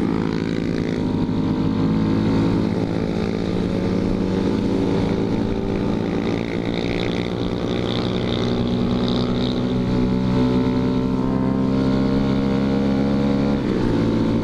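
Honda Grom's small single-cylinder engine running at a steady cruise, heard from the rider's helmet, its pitch holding steady for most of the stretch and shifting slightly near the end.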